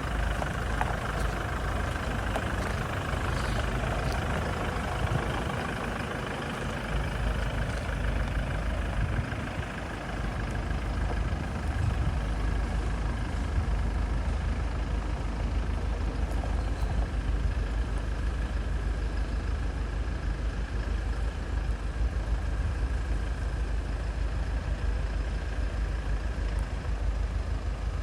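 Toyota Hilux Revo pickup's engine running steadily with a low rumble. About ten seconds in it drops briefly, then picks up again and holds.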